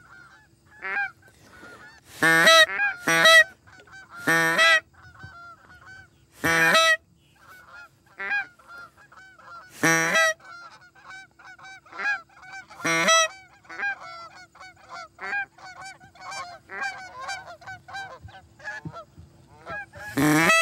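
A flock of Canada geese honking continuously overhead. Several loud, close honks from a hunter's goose call break in at intervals, calling the flock in.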